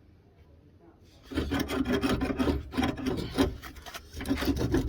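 Rapid, rasping scraping strokes of a hand tool being worked against the badly corroded front drop link, starting about a second and a half in.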